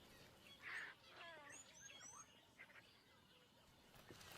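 Faint bird chirps over near silence: a quick cluster of short rising calls between about one and two and a half seconds in.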